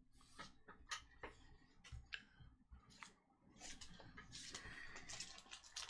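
Faint handling of trading cards: a few soft clicks and taps, then a light, steady rustle from about three and a half seconds in.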